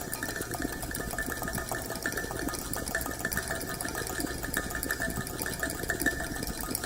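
Ceramic mug picked up by a contact microphone and processed live through a modular synthesizer: a steady, dense stream of rapid clicks and crackles.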